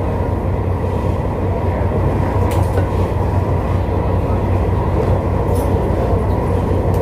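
Passenger train running, heard from inside the carriage: a steady, even noise with a constant low hum and a couple of faint clicks.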